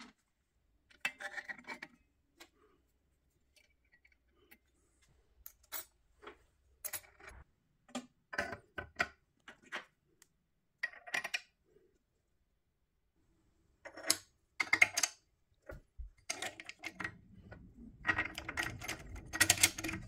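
Sparse metallic clicks and clatter of small metal parts and tools being handled on a workbench, coming more often near the end over a faint low hum.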